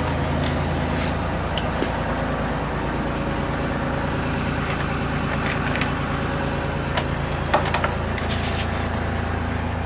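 New Holland 3930 tractor's three-cylinder diesel engine idling steadily, with a few light knocks from handling.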